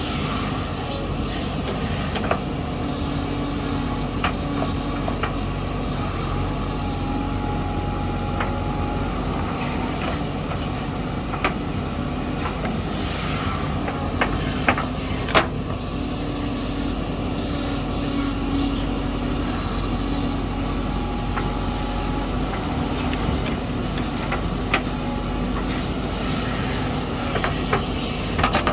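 JCB backhoe loader's diesel engine running steadily at work, with scattered sharp knocks and clanks, a few in quick succession about halfway through.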